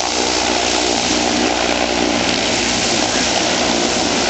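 Zeppelin NT airship hovering low overhead, its engine-driven propellers making a steady, loud drone.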